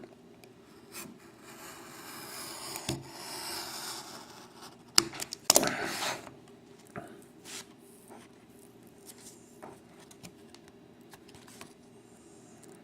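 A blade cutting and scraping at the wrapper of a sealed box-topper card pack, with the wrapper rubbing and crinkling as it is handled. This is followed by a few sharp crackles a little past the middle, then small scattered ticks.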